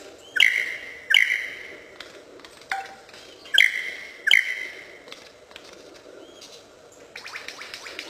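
Superb lyrebird singing: loud ringing whistled notes in two pairs, each opening with a sharp downward sweep. Near the end comes a rapid run of short falling notes, about eight a second, like the bird's laser-gun mimicry.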